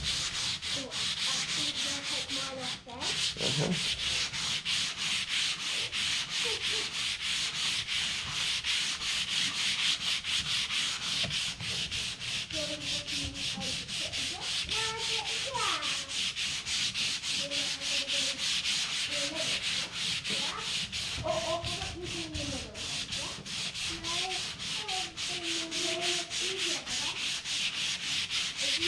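Sandpaper rubbed back and forth by hand over a wooden top in rapid, steady strokes, the rasping scratch of rough sanding.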